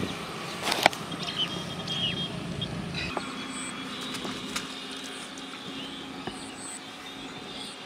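Motor traffic running on a road for the first three seconds, with one sharp click about a second in. Then a quieter steady hum with short high chirps.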